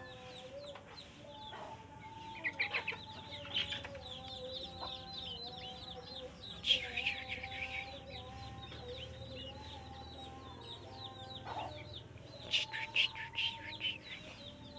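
Sooty-headed bulbul giving short bursts of quick chirping notes, three times, with softer calls between.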